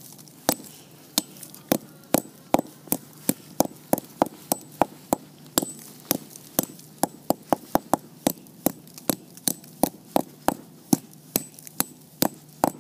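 Claw hammer tapping bits of red brick against a wooden beam, about three quick, even strikes a second, crushing the brick into powder.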